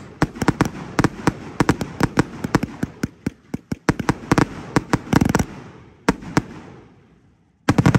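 FTS 'Pale Girl' 185-shot firework cake firing its closing shots: a rapid string of sharp reports, several a second, thickening into a dense cluster about five seconds in. A few last bangs follow and die away, then a short, loud burst of reports comes near the end.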